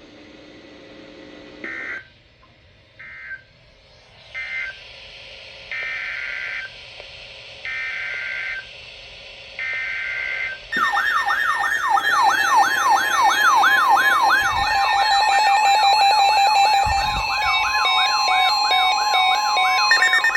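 Emergency Alert System data tones. First come three short screeching digital bursts that close the tornado warning, then three longer bursts that open the next alert. About ten seconds in, a louder attention alarm starts: a rapidly wavering siren-like tone with layered beeps above it, and a steady tone joins about halfway through.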